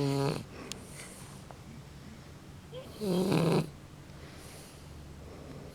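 Shar Pei puppy snoring in deep sleep. A loud snore comes at the very start and another about three seconds in, with quieter breathing between.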